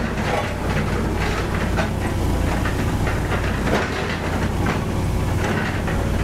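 Bomag BW 138 AD tandem drum roller running as it rolls along, its diesel engine giving a steady low drone with irregular metallic clatter and rattling from the machine over it.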